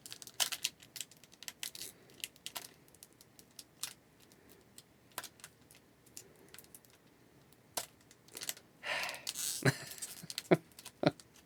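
Fingers picking at the sealed foil wrapper of a trading-card pack that is hard to open: scattered light clicks and crinkles, then a louder run of crinkling and tearing about nine seconds in.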